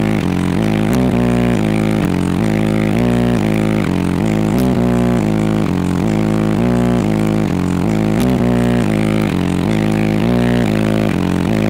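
Very loud bass-heavy music from a competition SPL car-audio system: low notes that switch pitch in a steady pattern several times a second, with a few sharp clicks.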